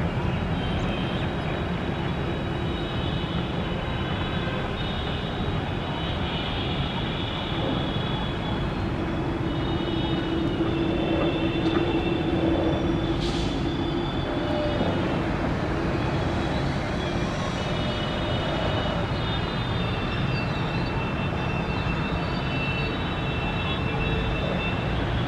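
Jet engines of a Boeing 787-8 airliner at taxi power, heard from far off: a steady whine over a low rumble.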